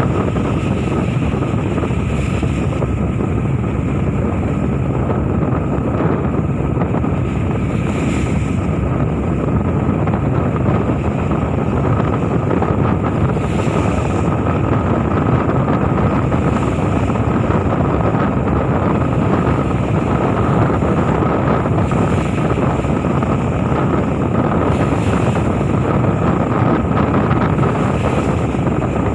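Steady drone of a fishing boat's engine, with a faint constant whine above it. Wind buffets the microphone, and the sea washes now and then every few seconds.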